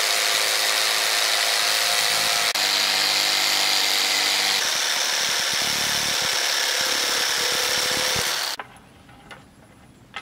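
Electric jigsaw sawing through a wooden plank, a loud steady buzzing rasp that shifts in tone a couple of times during the cut. It stops abruptly about eight and a half seconds in, leaving only a few faint knocks.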